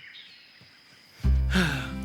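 A brief lull, then background music comes in suddenly about a second in, with a deep, steady bass note under sustained pitched tones.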